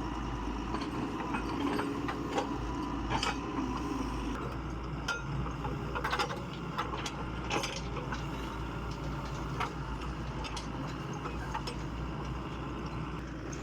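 Excavator's diesel engine running steadily, with scattered sharp metallic knocks and clanks from the machine at work.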